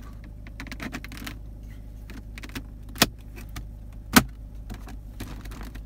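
Two sharp plastic clicks about a second apart as the centre-console trim is pressed and snapped back into its clips by hand, over the steady low hum of the idling car engine.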